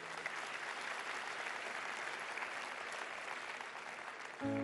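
Audience applauding, a steady patter of many hands clapping. Music with held notes comes in near the end.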